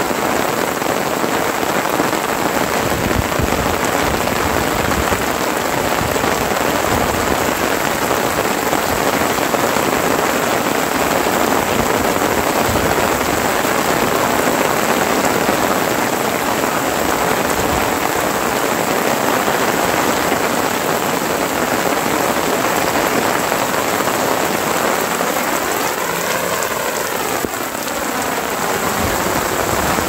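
Heavy rain pouring steadily, a dense, even hiss of rain on the ground and roofs.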